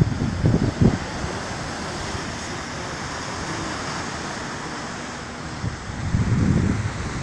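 Sea surf breaking and washing over rocks, with wind buffeting the microphone in low gusts about half a second in and again near the end.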